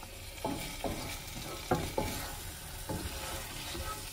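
Wooden spatula stirring and scraping spiced lamb pieces around a wok, several strokes, over a steady low sizzle of the meat frying dry on low heat.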